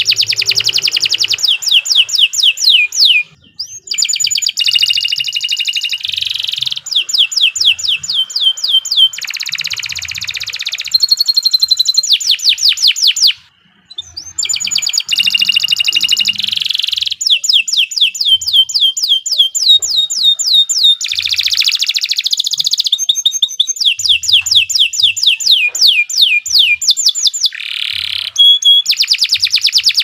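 Domestic canary singing a long continuous song of fast trills and rolls made of rapidly repeated falling notes, broken by short pauses about three and a half and thirteen and a half seconds in.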